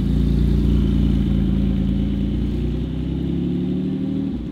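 Porsche 718 Cayman GT4's flat-six engine pulling away at low speed, its revs climbing slowly. The sound drops off near the end as the car moves away.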